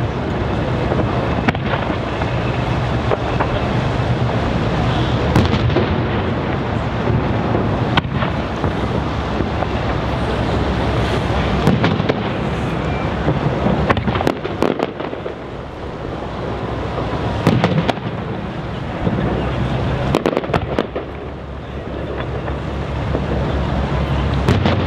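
Aerial firework shells bursting at a display: several sharp bangs stand out over a steady, continuous din.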